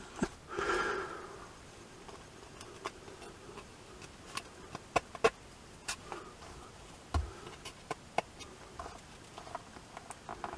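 Scattered small, sharp clicks and taps of a screwdriver and small metal bolt being handled against a wooden speaker baffle board, with a short breathy rustle about half a second in.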